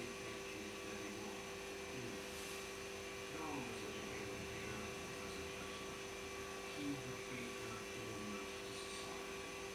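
Steady hum made of several fixed tones, unchanging throughout, over a faint background hiss.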